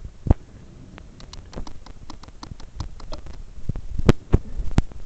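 A string of clicks and knocks: one sharp knock just after the start, then a quick run of light ticks, about seven a second, for around two seconds, then three louder knocks near the end.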